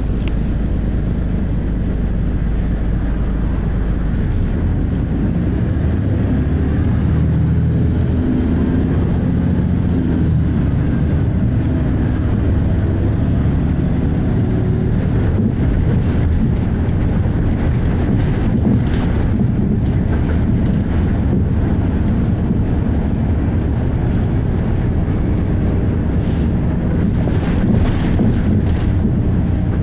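Volvo B6LE bus with ZF automatic gearbox running under way: the diesel engine drones and thrashes, and a strange, high-pitched whine climbs about four seconds in and then holds. Short rattles and knocks come in the second half.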